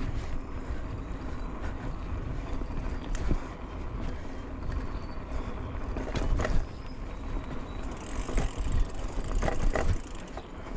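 Mountain bike rolling along a dirt singletrack: a steady rumble of tyres and wind, with the bike rattling over bumps about three, six and nine and a half seconds in.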